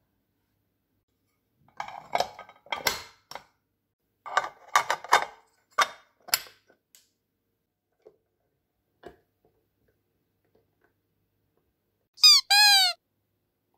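Interchangeable waffle plates of a small electric waffle maker being unclipped and fitted into it: a run of sharp clicks and clacks over several seconds, then two soft knocks as the lid is closed. Near the end come two short, high squeaks, the loudest sounds here.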